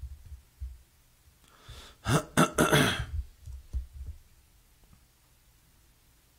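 A man clearing his throat close to a desk microphone: a harsh burst of a few quick rasps lasting about a second and a half, a little before the middle.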